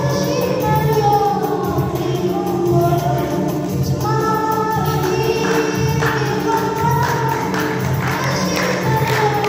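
A group of voices singing a scout anthem together in Arabic, over a steady percussion beat.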